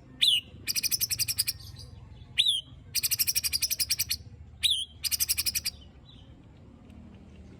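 White-rumped shama (murai batu) calling: three times, a sharp downward-swept note followed by a fast harsh rattle of about a dozen pulses a second lasting about a second. These are the rough 'tembakan' (shot) and 'besetan' (rattle) calls that bird keepers play to rile up other shamas.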